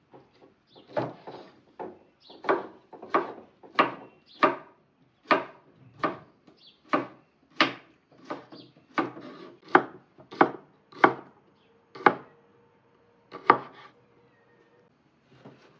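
A knife chopping on a wooden cutting board: sharp, separate cuts at about one and a half a second that stop shortly before the end.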